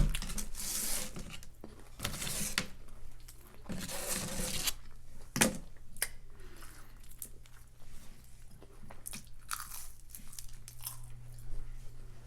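Close-up biting and chewing of crunchy food: loud crunches about half a second, two seconds and four seconds in, a sharp crack about five and a half seconds in, then quieter chewing.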